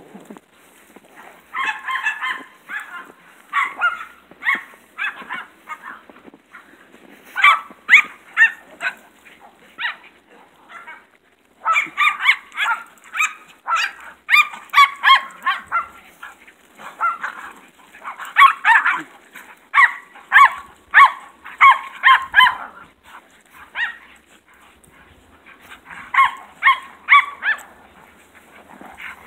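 Small poodles barking during rough play: rapid, high-pitched yapping in repeated bouts of a few seconds, with short pauses between.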